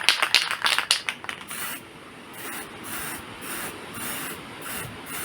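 Aerosol spray paint can: quick rattling clicks for about the first second and a half, like the mixing ball as the can is shaken, then a run of short, evenly spaced hissing spray bursts.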